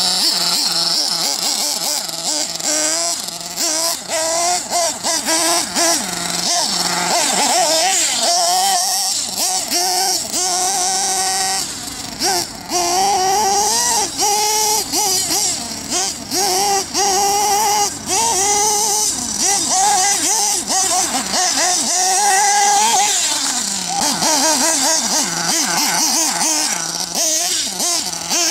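Nitro engine of a 4WD RC buggy, a Redcat Hurricane XTR, running hard and revving up and down over and over, with brief throttle lifts every few seconds.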